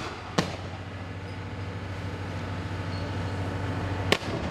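Two sharp bangs, one about half a second in and one near the end, over the steady low running of a police water cannon truck's engine.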